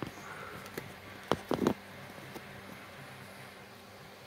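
Handling noise from the camera being moved and set in place above the workbench: a few light knocks and clicks, loudest as a quick cluster of three about a second and a half in, over faint room tone.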